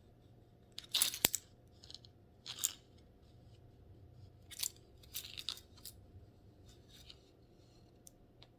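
Small clicks and rattles from handling a plastic photo keychain as it is opened to show its pictures: a sharp pair about a second in, then scattered quieter clicks.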